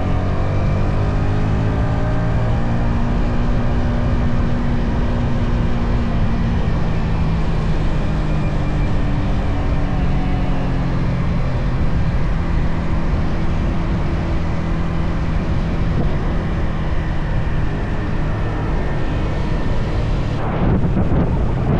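Yamaha XSR155's stock single-cylinder engine and exhaust under way on the road. The engine note falls in pitch over the first few seconds as the bike slows, then holds steady, with wind on the microphone and a short rush of noise near the end.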